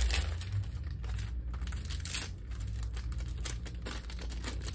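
Clear cellophane shrink wrap crinkling and tearing as it is peeled off a plastic CD jewel case, a dense run of small crackles throughout.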